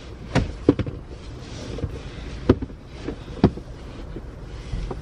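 A handful of sharp knocks and clicks, about five spread over a few seconds, over a steady low rumble: someone shifting about in the seat of a Jeep Wrangler with the top off and bumping against the interior and the camera.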